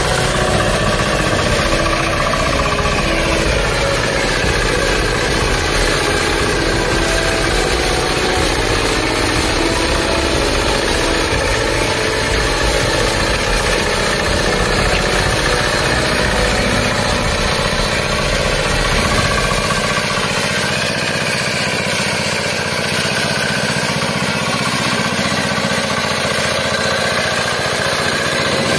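Engine of a homemade walk-behind power tiller running steadily while the tiller works through dry ground.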